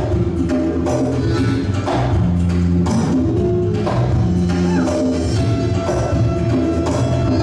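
Ballroom dance music played for the competing couples, with sustained instrumental notes and a steady beat accented about once a second.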